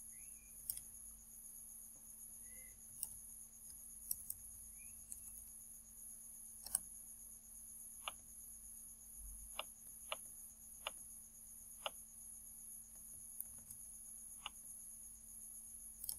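Faint, scattered clicks of a computer keyboard and mouse, roughly one a second at irregular intervals, over a steady low hum and a thin high whine from the recording setup.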